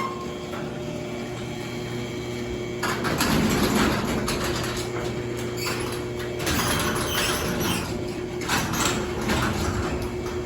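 LiftMaster garage door opener running, its motor humming steadily as it drives the door along the track. Rattling from the door's travel joins in about three seconds in.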